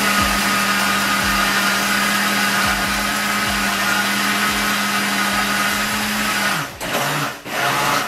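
Walita countertop blender running steadily at speed, churning a thick pão de queijo batter of polvilho starch, cornmeal and liquids. About six and a half seconds in the motor's pitch drops and the sound breaks up into a couple of short surges as it is switched off.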